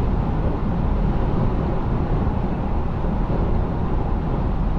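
Steady road and engine noise inside a moving car's cabin, a low, even rumble.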